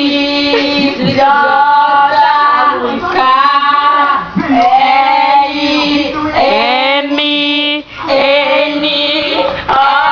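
Girls' voices drawing out the letters of the alphabet as long sung notes into a running electric fan, the spinning blades chopping the voices into a quick warbling flutter. The notes come one after another with short breaks between them.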